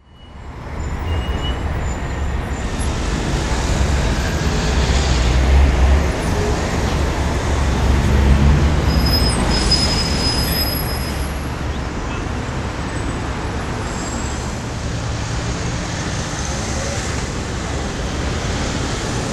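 Urban road traffic: passing vehicles' engines and tyres making a steady rumble, with the sound fading in at the start.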